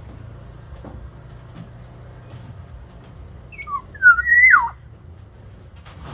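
Black-naped oriole (kepodang) giving one short, fluid whistled phrase about halfway through: a few quick notes, then a loud whistle that drops in pitch at the end.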